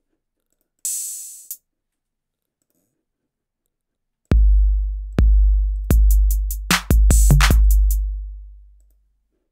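BandLab drum machine's 808 kit: a single short high hiss about a second in, then from about four seconds an 808 beat of about five deep, long-ringing kick booms with hi-hat ticks and snare-clap hits between them. The last boom fades out over about a second and a half.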